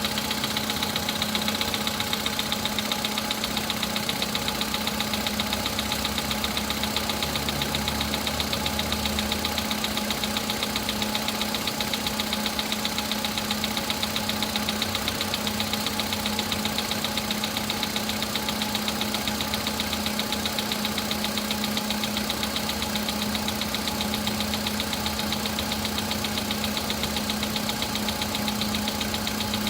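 VW Polo's 1.6-litre CFNA four-cylinder petrol engine idling cold with a steady, rapid knock. This is the cold-start knock that dies away once the engine warms, traced to the pistons.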